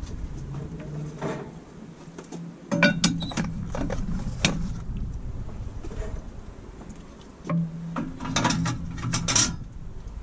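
Half-moon heat deflector plates and a round wire grate being set into a Kamado Joe ceramic grill: clanks and scrapes of metal on metal, a cluster about three seconds in and another run near the end.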